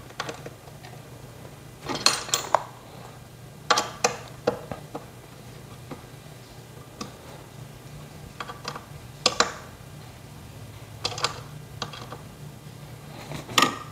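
Scattered metal clicks and clinks, in small clusters, as a hex key works the M8×20 bolts fixing a chair's seat plate, over a low steady hum.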